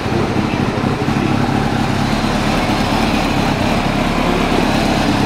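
1996 Kawasaki ZX-11's inline-four engine idling steadily.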